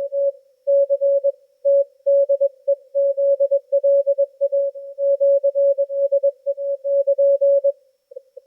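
Morse code (CW) signal received on a Yaesu FTdx10 transceiver: one single-pitch beep keyed on and off in dots and dashes. A fainter, quicker-keyed signal takes over about eight seconds in.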